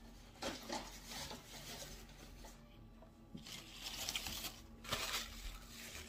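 Short, irregular bursts of rustling and handling noise while a takeout burger and fries are eaten and passed around.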